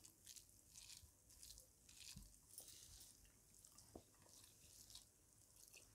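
Faint soft squishes and small clicks of fingers mixing plain rice with curry on a plate, picked up close by a microphone.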